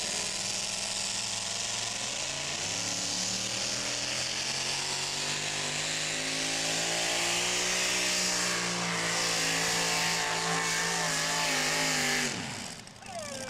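Engine of a 6,200 lb two-wheel-drive pulling truck running at full throttle as it drags the weight-transfer sled, its pitch climbing and then holding high. Near the end the pitch falls sharply as the throttle comes off at the end of a full pull.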